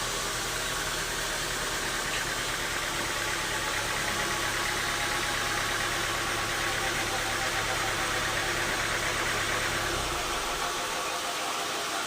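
Band sawmill running, a steady mechanical noise. Its low hum cuts off about ten seconds in, leaving a steady hiss.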